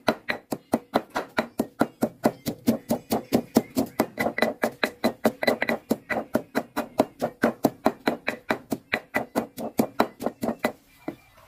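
Stone pestle pounding a chilli paste of dried red chillies and garlic in a granite mortar: a steady run of sharp knocks, about four or five a second, stopping near the end.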